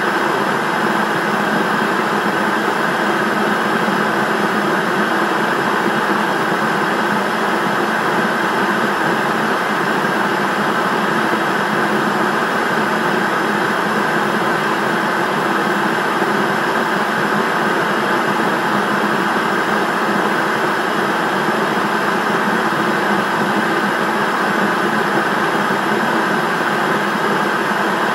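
Television static from an untuned set: a steady, loud hiss of noise that does not change.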